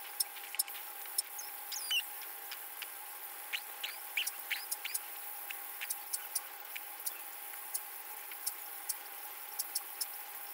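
Ultrasonic dental scaler running on a dog's teeth: a steady hum and high hiss, with irregular clicks and ticks as the tip works against the teeth. A few short squeaks come about two seconds in and again around four seconds in.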